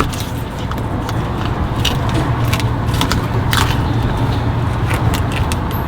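Fillet knife clicking and scraping on a mangrove snapper's bones and skin, in scattered short strokes over a steady low motor hum.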